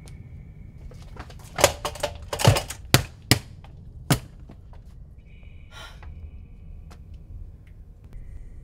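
A fist pounding on a door, a quick, uneven run of about eight hard knocks from about one and a half to four seconds in.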